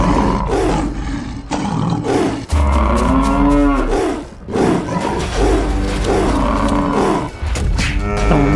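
Cattle moos and bellows follow one after another with no gap, with tiger roars mixed in. There is one long moo about three seconds in.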